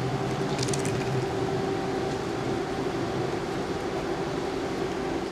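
Electric cable funicular car running down its track to the valley station: a steady mechanical hum with a drone held at one pitch.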